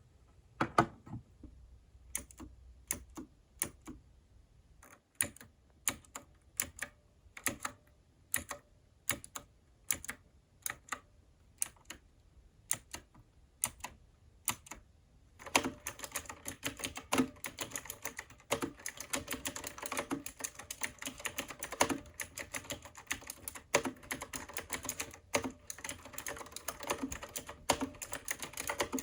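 Keys of an AULA F2088 typewriter-style mechanical keyboard clicking, first one at a time at about one or two presses a second. From about halfway through they give way to fast, continuous typing.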